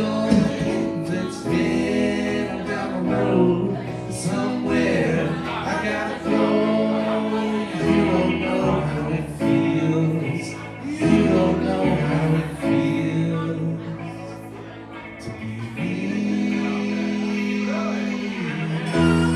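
Live band playing a song on keyboard, acoustic guitar and electric guitar, with male voices singing over it; the music eases off briefly about two-thirds of the way through.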